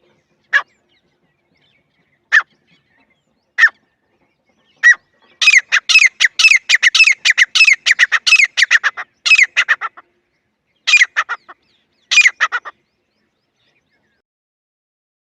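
Francolin (teetar) calling: a few single sharp notes spaced a second or two apart, then a fast run of repeated notes lasting about four seconds, and two short bursts near the end. It is a recorded call used as a hunting lure.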